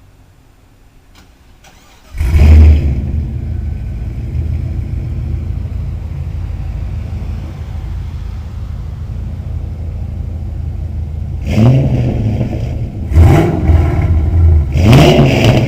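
An LS1 V8 with an aftermarket exhaust starts about two seconds in, flaring loudly as it catches, then idles. Near the end it is revved three times in quick blips.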